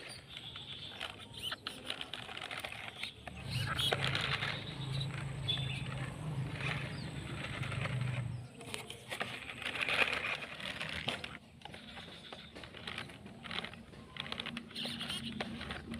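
Remote-control scale pickup truck driving over loose dirt: scratchy crackling of its tyres over soil and twigs, with a steady low hum from its small electric motor and gears from about three seconds in to about eight seconds in.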